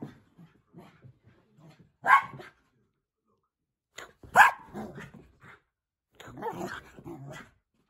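Manchester terrier barking in excited play during a zoomies session: two sharp barks about two seconds apart, then a longer, quieter run of noises from the dog near the end.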